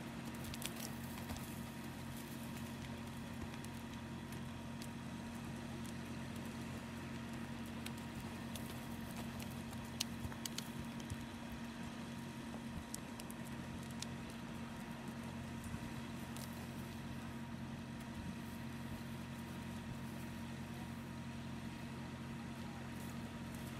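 Steady low engine hum with several fixed tones, like a motor idling, with a few scattered faint clicks.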